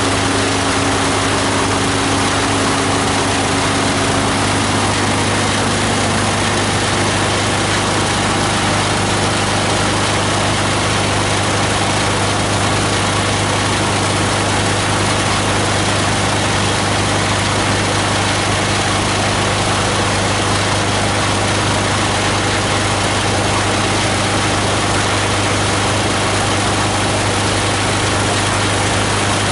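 The 18 HP diesel engine powering a multi-blade plastic grinder, running steadily. A higher hum heard at the start fades out after about five seconds.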